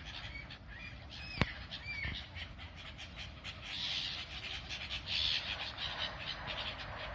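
Birds squawking and calling, many short calls overlapping, with a sharp click about a second and a half in.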